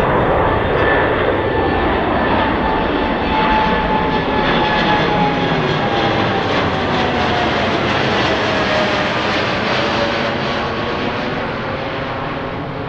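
Jet airliner passing by with its engines running loud: a roar with a whine in it that slides steadily down in pitch as the plane goes past, easing off slightly near the end.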